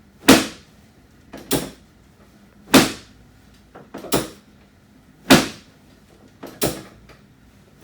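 Chiropractic drop table: its drop section lands with three loud clacks about two and a half seconds apart. A softer double click falls between each pair of clacks as the section is reset for the next drop.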